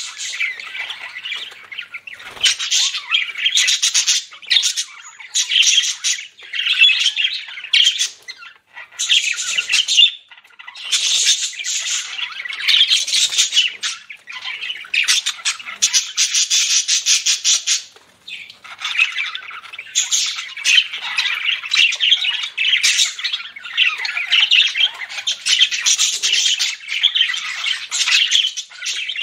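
Budgerigars chattering: fast runs of high chirps and squawks in bursts of a few seconds, with short pauses between them.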